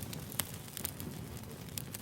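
Wood fire burning, with a steady low rumble and scattered sharp crackles and pops, three standing out about half a second in, near the middle and near the end.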